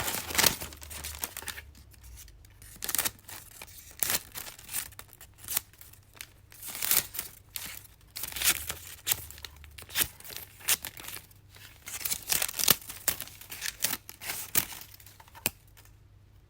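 Scissors cutting paper, in a run of crisp snips and slicing strokes at an uneven pace with short pauses between cuts.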